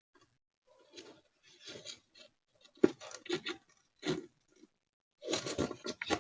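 Scissors cutting through paper tabs covered in clear tape, with irregular snips and rustling paper, one sharp snip about three seconds in and a busy run of cuts near the end.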